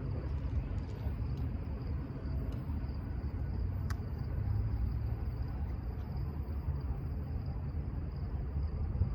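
Steady low rumble with a continuous high-pitched cricket trill over it, and a single sharp click about four seconds in.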